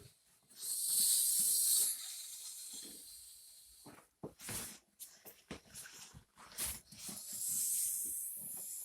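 Air hissing out of a motorcycle inner tube's valve as it is let down completely, in two bursts: one from about half a second to two seconds in, another from about seven seconds in. Between them, short knocks and rustles of the rubber tube being handled.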